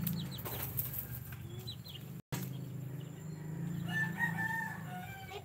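Native chickens clucking, and a rooster crowing once about four seconds in, a single long held call.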